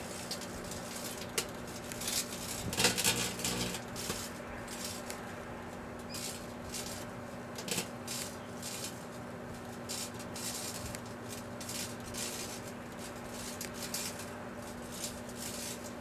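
Faint outdoor ambience: scattered small crackles and ticks over a steady low hum, with a louder rustle about two to four seconds in.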